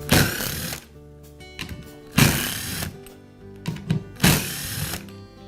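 A small power tool, most likely an electric screwdriver backing out the grinder's housing screws, runs in three short bursts about two seconds apart, over steady background music.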